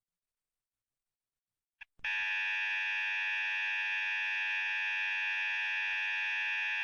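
Emergency Alert System attention signal: a steady electronic alarm tone that starts about two seconds in, after silence and a short blip, and holds without change.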